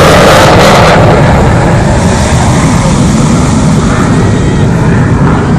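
Panavia Tornado jet passing loud and close, its twin turbofan engines making a harsh noise. About a second in the high hiss drops away, leaving a lower rumble that eases off as the jet moves away.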